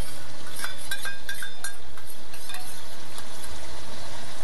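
Onion-tomato masala sizzling in an aluminium karahi as yogurt is stirred in with a metal spoon, which clinks against the pan several times about a second in.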